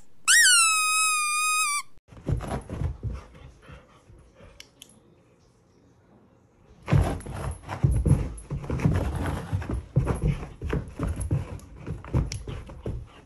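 A loud, high squeaky call that drops in pitch and then holds for about a second and a half. Then a dog's feet thump and scrabble on carpet in bursts as it chases a laser dot, fitfully at first, then busy and loud from about halfway.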